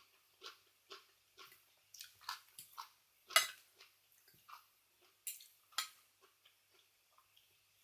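A person chewing raw oysters with green papaya salad (som tam) close to the microphone: a steady run of wet mouth clicks and smacks, with a sharper, louder one about three and a half seconds in and two more a little before six seconds.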